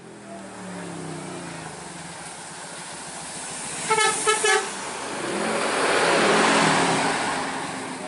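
Tour bus engine pulling round a bend with a quick series of short blasts on its Basuri 'telolet' multi-tone horn about four seconds in. The engine and road noise then swell as the bus passes close by.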